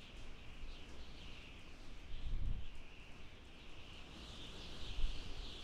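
Outdoor nature ambience: a steady, high-pitched chorus of chirping creatures that swells a little in the second half, over a low rumble that surges about two and a half and again about five seconds in.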